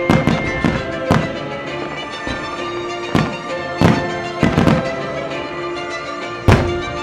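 Aerial firework shells bursting overhead in a display, about eight sharp booms spread irregularly, the loudest near the end, over music playing throughout.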